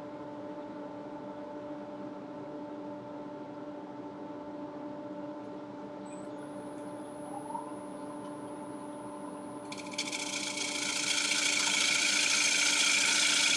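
Wood lathe running with a steady hum; about ten seconds in, a bowl gouge starts cutting the rim of the spinning walnut bowl, a loud hissing cut that holds steady.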